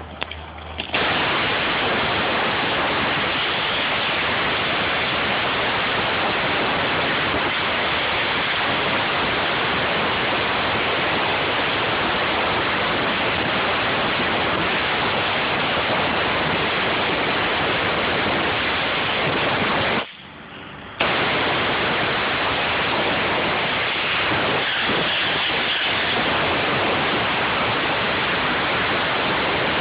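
Air spade blasting compressed air into the soil around a tree's base to loosen and blow it away from the root collar: a loud, steady hiss. It starts about a second in and cuts out for about a second two-thirds of the way through before blasting again.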